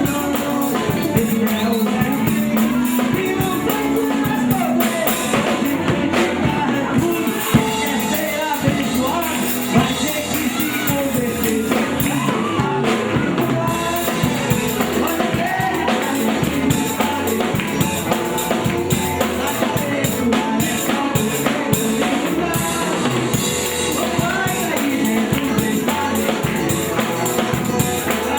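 Live gospel band playing a worship song, with drum kit, electric bass, electric guitar and keyboard.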